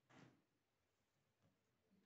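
Near silence: room tone, with one short faint noise about a quarter second in.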